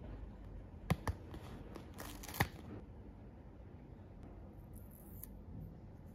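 A sticker peeled off its paper backing sheet and pressed onto a small plastic toy spatula. Two light taps come about a second in, then a short peeling rustle around two seconds in that ends in a sharper tap, then faint handling.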